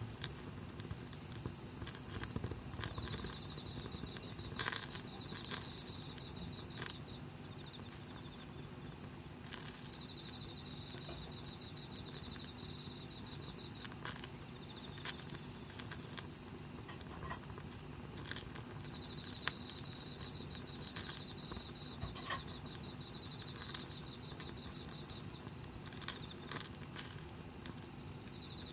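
Wood campfire crackling, with scattered sharp pops over a steady hiss of the fire. A thin high chirring, typical of insects, comes and goes in the background.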